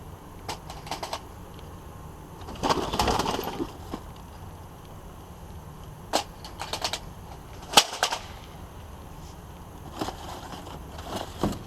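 Discarded electronics and junk being rummaged through and shifted in a dumpster: scattered clacks and knocks of hard items, a longer rattling clatter about three seconds in, and one sharp bang near eight seconds.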